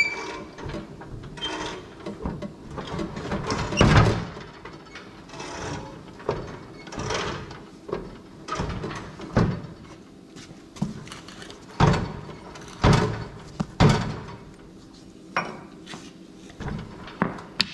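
Rusted front steering spindle and linkage of a John Deere 175 riding mower clunking and scraping as the steering is worked back and forth, in irregular knocks and creaks with sharper knocks in the second half. The spindle is seized with rust and barely turns.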